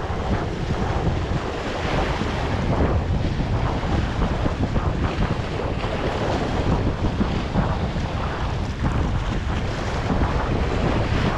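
Wind buffeting the microphone over the steady wash of ocean surf against rocks.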